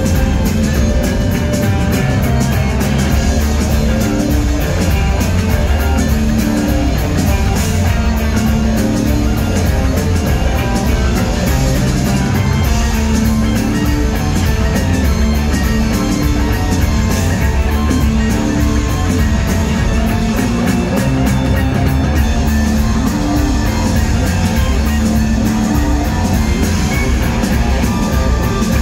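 Live rock band playing loudly: electric guitars and keyboards over a bass line that moves between held notes, heard from the audience in a concert hall.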